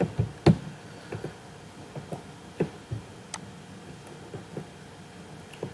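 About a dozen light clicks and knocks at uneven spacing, with a faint room background between them: desk sounds from the presenter handling the computer.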